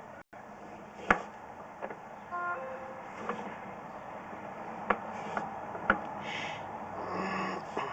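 Sewer inspection camera being pushed along a drain line: a steady hiss with four sharp knocks and clicks spread through it, and one short tone a little after two seconds in.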